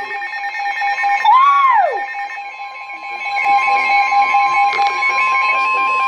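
Several weather alert radios sounding their warning alarms together for a flash flood warning: a steady high alarm tone over a second, lower steady tone. One tone sweeps up and falls away about a second in, and rapid higher beeping joins partway through.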